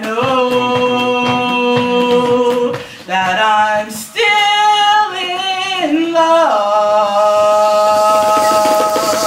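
A woman singing solo, holding long notes: one sustained note, short breaks about three and four seconds in, then a run of notes stepping downward that settles into another long held note.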